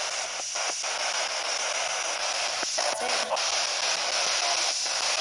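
Spirit box scanning FM radio: steady static hiss, broken by a few brief dropouts as it jumps between stations.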